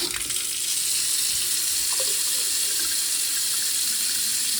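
New kitchen mixer tap turned on and running steadily into a sink, a test of whether the slack spout O-ring still leaks.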